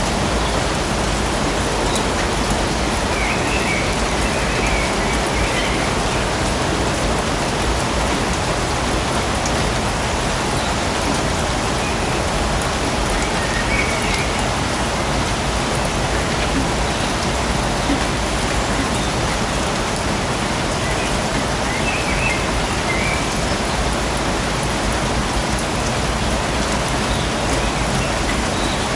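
Steady rain falling in a forest, an even hiss of drops on leaves and surfaces. A few faint high chirps come through now and then.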